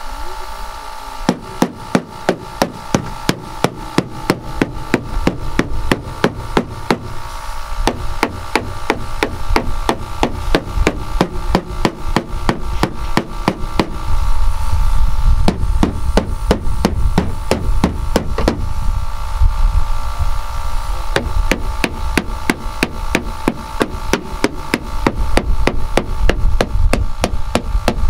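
White-headed mallet hammering on the steel body panel of a school bus, knocking out a dent. The blows come several a second in runs with short pauses, over a steady mechanical hum.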